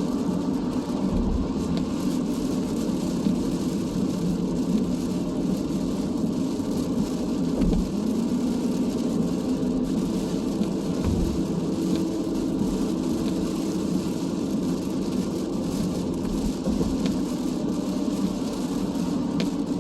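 Steady road noise of a car at highway speed, heard from inside the cabin: a constant drone of tyres and engine on a wet road.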